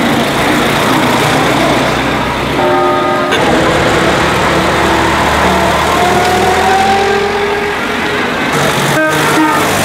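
Veteran cars, among them a Ford Model T, driving slowly past with their engines running and tyres on a wet road. A few short pitched tones stand out over the engines, one about three seconds in.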